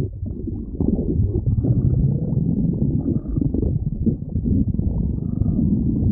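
A person's stomach growling: a continuous low gurgling rumble that swells and fades irregularly, with no break.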